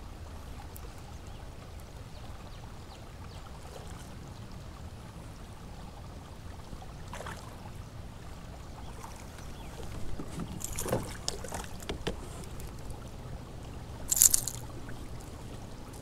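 Low steady water and wind noise around a kayak, then a few short splashes near the end as a hooked bass thrashes at the surface while being brought in, the loudest splash about two seconds before the fish is lifted out.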